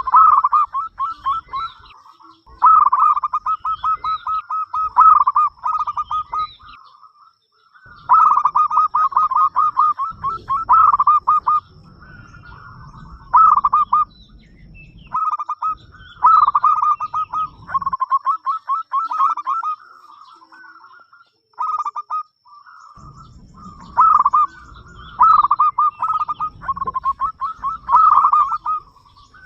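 Zebra dove (perkutut) cooing: phrase after phrase of fast, rolling coos on a fairly steady pitch, separated by short pauses.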